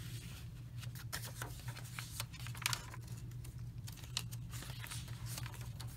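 Paper pages and card tags of a handmade junk journal being turned and handled: scattered rustles and light taps, over a low steady hum.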